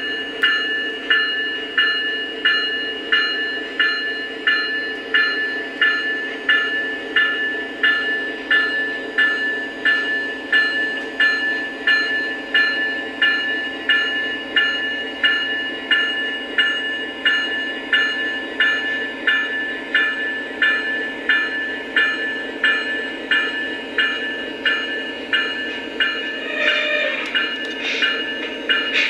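Model diesel locomotive sound system ringing its bell in a steady repeating ding, a little more than once a second, over a continuous diesel engine rumble. A brief extra sound breaks in near the end.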